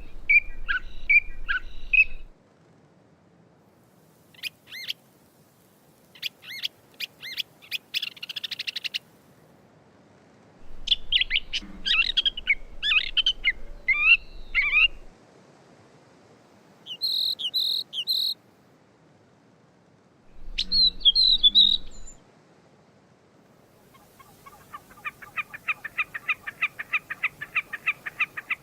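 Gray catbird singing, a string of separate, varied phrases with pauses between them, part of its song of mimicked calls of other species. Near the end it gives a fast, even run of repeated notes, about six a second.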